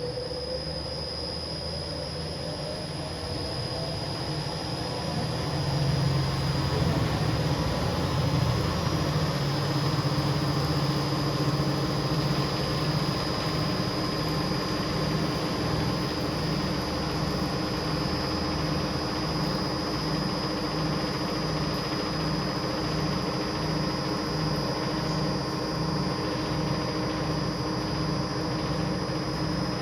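Carpet spinner's stainless drum spinning up on its inverter-driven 3 HP electric motor. The pitch rises and the sound grows louder over the first several seconds, then it runs at steady speed with a regular low pulsing beat and a steady high whine.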